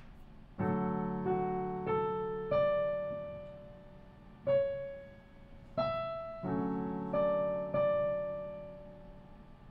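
Yamaha digital piano played slowly: a melody over chords, about nine notes and chords struck one to two seconds apart, each left to ring and fade.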